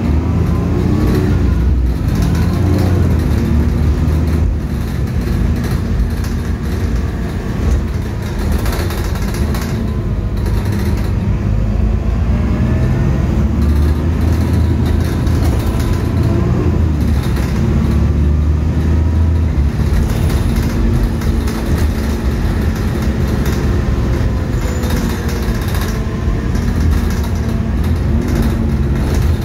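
Diesel engine and drivetrain of a Stagecoach single-deck bus heard from inside the passenger saloon as it drives: a heavy low rumble, with the engine note rising and falling several times as it accelerates and changes gear.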